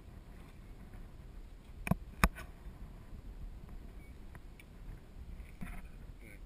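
Two sharp knocks on the skiff, about a third of a second apart, then a few faint clicks near the end, over a low steady rumble.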